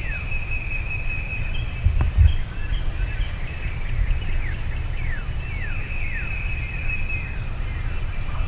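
A bird calling over and over in short falling whistles against a steady high note, over a low steady rumble. A single sharp tick comes about two seconds in.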